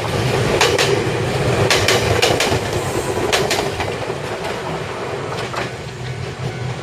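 Ryutetsu Nagareyama Line electric train running past close by, a steady rumble with its wheels clacking in quick pairs over the rail joints, loudest in the first few seconds.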